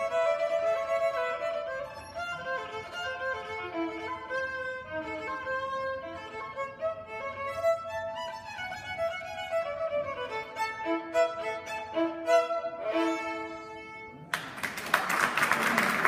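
Solo violin playing a melody of separate bowed notes that ends about two seconds before the close, followed at once by audience applause, which is louder than the violin.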